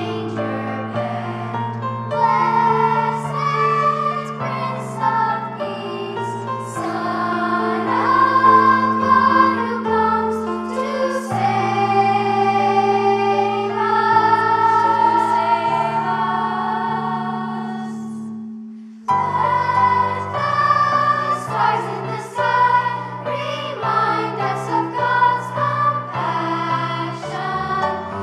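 Choir singing with instrumental accompaniment over a long held low note. About two-thirds of the way through the music fades out and a new song starts abruptly.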